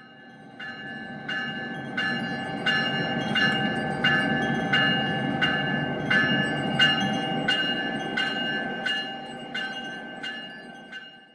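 Locomotive bell ringing steadily, about one and a half strokes a second, over the low rumble of a train. It fades in at the start and fades out near the end.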